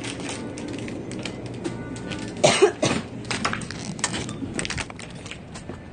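Faint background music playing in a convenience store, under many small clicks and knocks of handling, with one short loud burst about two and a half seconds in.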